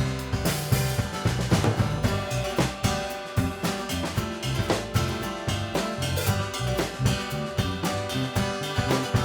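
Live band playing an instrumental passage with no vocals: a drum kit keeping a steady beat with bass drum and snare, over held chords and a moving bass line.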